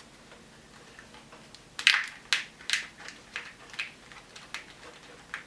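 A run of sharp clicks, about two a second, from hands working a car wiring harness. The first click, a little under two seconds in, is the loudest; the rest fade.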